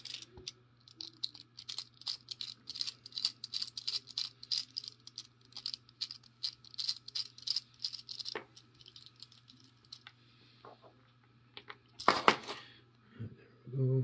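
Quick, irregular metallic clicking and clinking of a pin-tumbler lock cylinder being taken apart by hand, several clicks a second for about nine seconds. A louder clatter of metal comes near the end.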